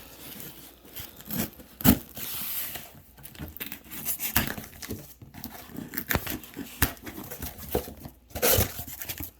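Plastic packaging and tape being torn and crinkled open by hand: irregular crackling and rustling, with a sharp snap about two seconds in.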